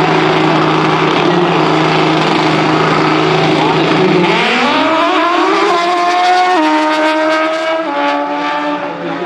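Nitrous-injected drag-racing motorcycle engine held at a steady rpm on the starting line, then launching about four seconds in. The engine note climbs and drops abruptly at each of two upshifts.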